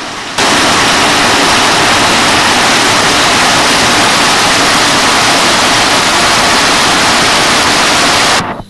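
Waterfall heard close up: a loud, steady rush of falling water that starts abruptly about half a second in and cuts off sharply just before the end.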